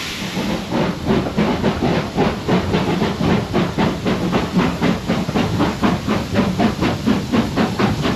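Double-headed steam locomotives, GWR 4-6-0 7812 Erlestoke Manor and 2-6-2T 5521, working a train away from a station: sharp exhaust beats at about three a second over a steady hiss of steam.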